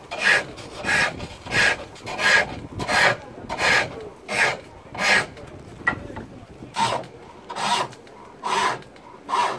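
Tool cutting wood on a foot-treadled pole lathe: a rhythmic scraping stroke about every 0.7 s, with the cut coming on each downstroke of the treadle. The strokes pause for over a second about five seconds in, then resume a little slower.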